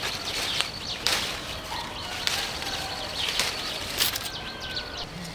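Rustling and crackling of leaves and twigs, a series of sharp swishes and snaps, with faint bird chirps.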